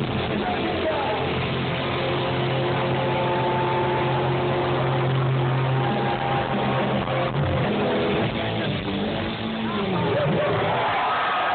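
Live rock band playing loud amplified music with electric guitars: a long chord held for several seconds, then shifting notes, and a fuller band sound near the end.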